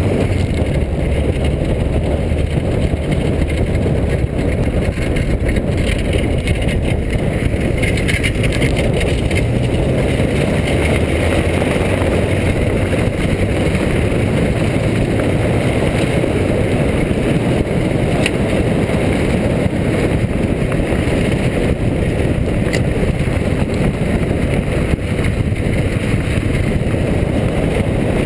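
A car driving along a gravel dirt track, heard from a camera mounted low on the outside of its door: a steady rush of tyre and wind noise over a low engine hum.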